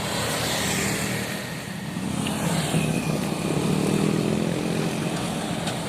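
Road traffic passing close by: vehicle engines run steadily, and a second engine note rises and swells about three and a half seconds in.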